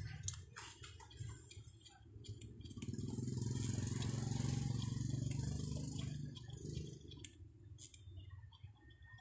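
A small metal tool clicking and scraping at the edge of a Bose 301 Series IV woofer as the rubber surround is pried loose from the metal frame. Under it a low engine rumble swells from about three seconds in and fades by about seven.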